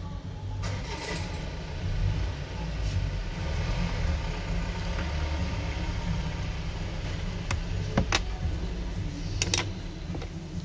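Small sharp clicks of tweezers and a screwdriver against the plastic and metal parts of an opened Xiaomi Redmi 9A as its loudspeaker module is fitted back, a few about a second in and more near the end, over a steady low rumble.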